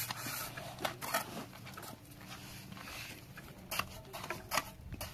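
Wet cement mortar being scraped and spread over concrete blocks with a hoe and a trowel: a run of short scrapes and knocks, metal on mortar and block.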